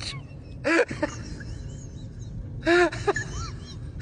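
Two short high-pitched vocal cries, about two seconds apart, over a low background murmur.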